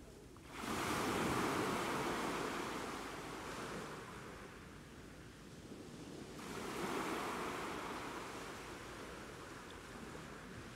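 Sea waves washing in on the shore in two surges, one about a second in and another past the middle, each swelling quickly and then slowly ebbing away.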